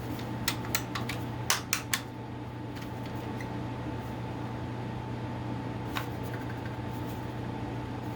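Several sharp plastic clicks and taps from a smoke alarm being handled: about five in the first two seconds and one more near six seconds. They sit over a steady hum.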